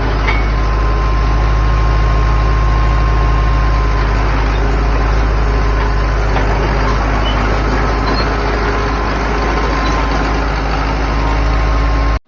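Caterpillar D4D bulldozer's diesel engine running steadily and loudly at close range, cutting off suddenly near the end.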